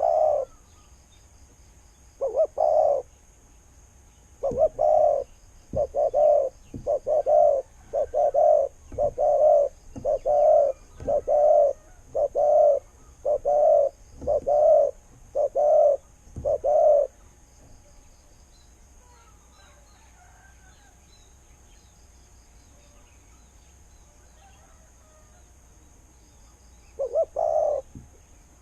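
Spotted dove cooing: a long run of about a dozen coos at roughly one a second, then a pause and one more short call near the end. The bird is a caged decoy kept for its good voice.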